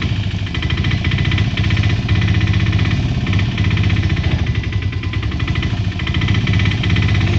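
Mahindra Alfa auto-rickshaw engine running with a rapid, even clatter as the three-wheeler climbs a steep dirt track.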